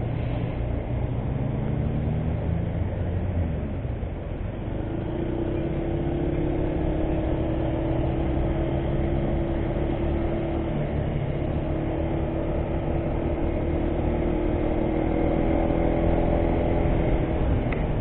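Motor scooter engine running while riding along a road, with steady wind and road noise. Its pitch climbs in the first few seconds, then holds fairly steady.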